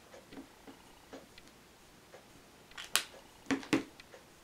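Faint light ticks, then a few sharp plastic clicks about three seconds in, from a dual-tip ink marker being capped, set down and another picked up.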